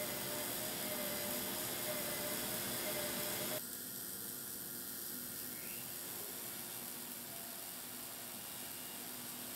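Steady hiss of wire-feed welding from a portable automatic bore welder, with a faint wavering whine. It cuts off abruptly about three and a half seconds in, leaving a quieter steady hiss.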